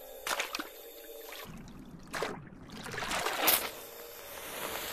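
Water splashing and trickling from archer fish shooting jets of water, with three short splashes, the loudest about three-quarters of the way through.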